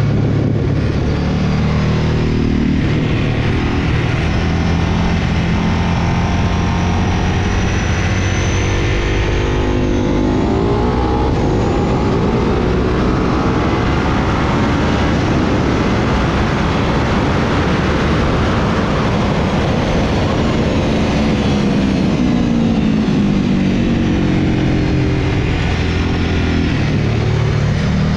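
Sport motorcycle at speed on a race track, its engine revving up and down through corners and straights with heavy wind rush. The engine pitch climbs about ten seconds in, runs high at top speed, drops as the bike slows around two-thirds of the way through, and climbs again near the end.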